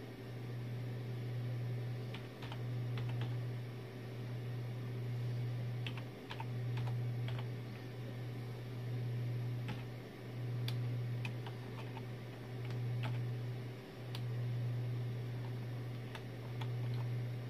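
Slow, irregular keystrokes on a computer keyboard, about one key a second, as a terminal command is typed in. Under them runs a steady low hum that swells and fades every few seconds.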